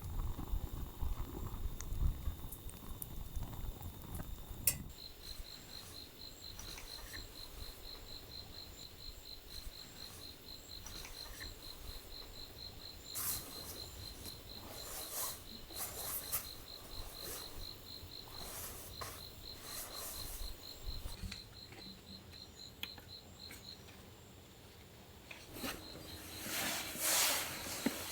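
An insect chirps in an even, high-pitched pulsing trill, breaking off briefly near the end before starting again. Occasional light clicks and clatter sound over it.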